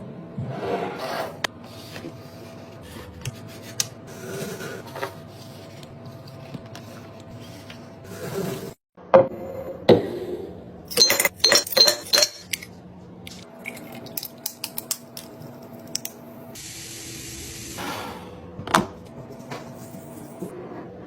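Kitchen restocking handling sounds: containers, bottles and dishes clinking and tapping over a faint steady hum, with a quick run of sharp clicks about ten to twelve seconds in and a short hiss a little later.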